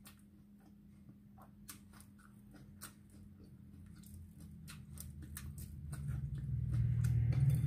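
Scattered small crackles and ticks of crisp fried fish being pulled apart by hand on aluminium foil. A low rumble builds up over the last couple of seconds, over a faint steady hum.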